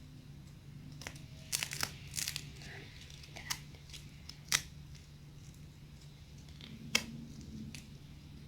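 Cracking clay being squeezed and pulled apart, its dried crust crackling in sharp snaps: a cluster about one and a half to two and a half seconds in, then single snaps about four and a half and seven seconds in. A steady low hum runs underneath.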